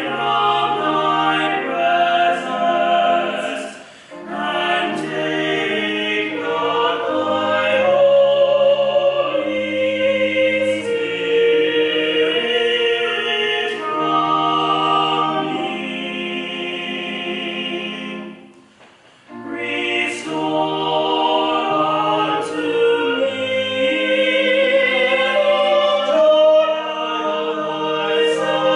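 A small group of church choristers singing a hymn-like piece in several parts, holding long notes, with two short breaks between phrases: one about four seconds in and one about two-thirds of the way through.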